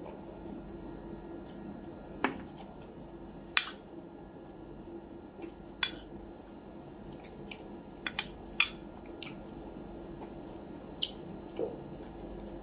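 A fork clicking and tapping against a plate, about eight short, sharp clicks spread irregularly over several seconds.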